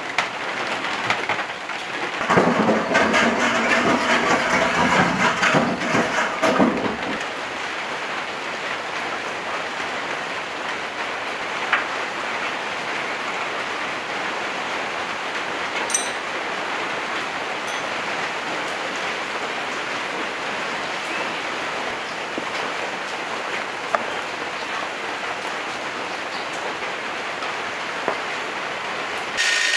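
Steady rain, an even hiss, with a louder, busier stretch of noise from about two to seven seconds in and a few sharp clicks later on.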